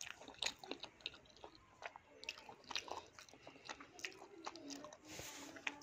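Faint, close-up mouth sounds of a person chewing a mouthful of roti and fried aubergine (begun bhaja): soft, irregular smacks and clicks, several a second.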